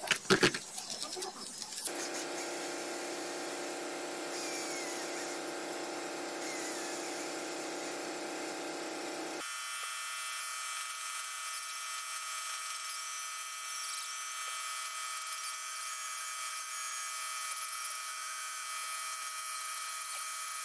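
A few sharp scrapes of a steel blade on carbon at the start. Then a small handheld rotary grinder runs with a steady high whine, its tone changing abruptly about nine seconds in.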